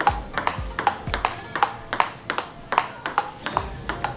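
Table tennis rally: the ball clicks sharply and evenly off the bats and the table, about three hits a second, the coach's strokes played with a LOKI Violent V9 ebony-carbon blade.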